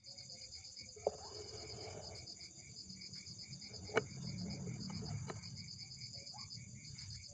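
Insects chirring in a steady, fast pulsing trill, with two sharp knocks, about a second in and about four seconds in, and a fainter click soon after.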